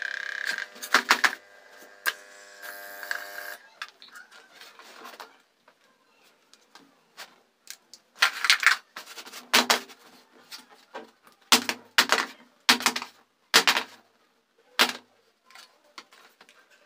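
A small homemade electric air pump, in an aquarium-pump-style box, buzzes steadily while inflating a bicycle inner tube and stops about three and a half seconds in. After that come irregular knocks and short rustling bursts from handling: the pressed tube, the pump box and its hose being pulled off the valve.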